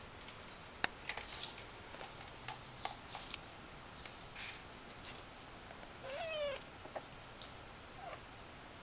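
A three-week-old Persian kitten gives one short, high mew that rises and falls about six seconds in, with a couple of tiny squeaks after it. Light clicks and scratches come and go throughout.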